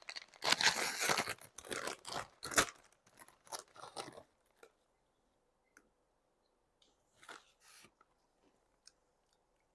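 A crinkly potato chip bag rustling and crackling as it is handled for about four seconds, then Lay's Fried Green Tomato potato chips being crunched, with sparse small crunches and one short rustle near the end.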